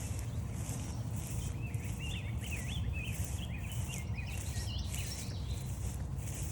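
Footsteps on the trail crunching in a steady walking rhythm, with a songbird singing a string of quick rising-and-falling notes through the middle, over a steady low rumble.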